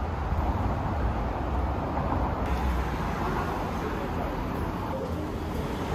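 Steady city street traffic noise with a low rumble.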